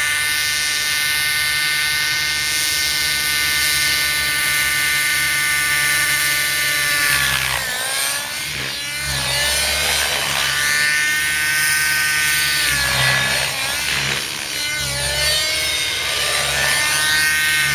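Nitro-powered Velocity 50 RC helicopter's small two-stroke glow engine and rotor blades running at a steady high pitch. About halfway through the pitch starts dipping and climbing again and again as the helicopter is thrown through hard aerobatic manoeuvres and the engine is loaded and unloaded.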